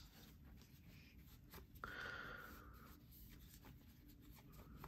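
Mostly near silence: a faint click about two seconds in, followed by a brief soft rubbing of a microfiber cloth wiping excess pivot lube off a folding knife's blade and handle.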